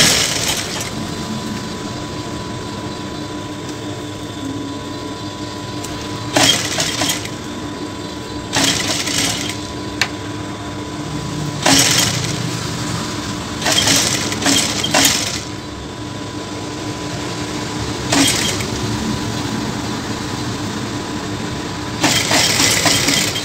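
Industrial lockstitch sewing machine: its motor hums steadily while it stitches in several short bursts, tacking a blouse panel onto its lining.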